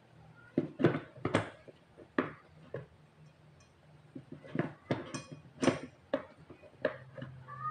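Irregular plastic and metal clicks and knocks as an electric food chopper's stainless motor head is pressed and twisted onto its plastic lid, which won't seat easily. There are about a dozen sharp knocks; the motor is not running.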